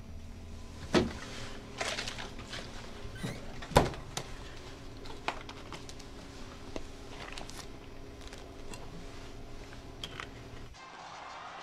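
Sharp knocks and light clicks of a plastic water bottle being taken from an open refrigerator and handled, over a steady low hum. The two loudest knocks come about one second and about four seconds in. The hum cuts off abruptly near the end.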